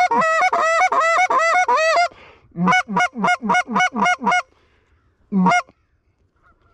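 Loud Canada goose honks and clucks in rapid runs, about four or five calls a second, with a short pause about two seconds in and one last honk near the end.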